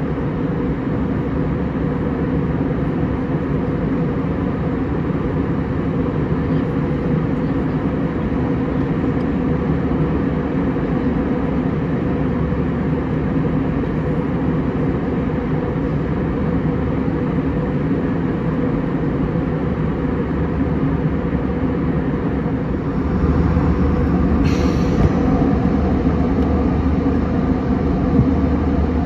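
Steady engine and air noise inside the cabin of an Airbus A320 in flight, heard from a window seat. About 23 seconds in it gets a little louder and deeper, with a brief click soon after.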